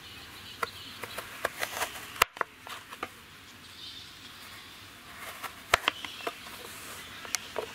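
Knife cutting elephant foot yam into sticks, the blade tapping down on a wooden cutting board in a scattering of sharp clicks.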